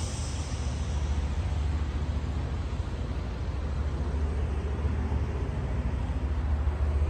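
A heavy diesel truck engine idling with a steady low rumble.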